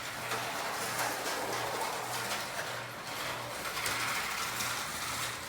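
Vintage 1970 Eldon 1:32-scale slot-car snowmobile running around the track: the small electric motor's buzz and the plastic rattle of the model on the track, over a steady low hum.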